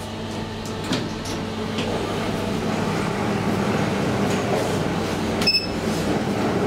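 Rumble of a metro train in the station, growing slowly louder, with a sharp metallic click about five and a half seconds in.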